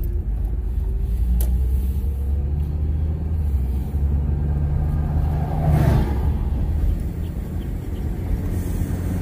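Steady low engine and road rumble inside a moving car's cabin, with a brief whoosh about six seconds in as an oncoming vehicle passes.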